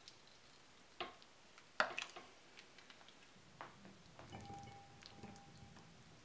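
Faint clicks and knocks of a ladle against a crock pot, the sharpest about two seconds in, then soft wet squishes as thick bean chili is ladled into a bowl.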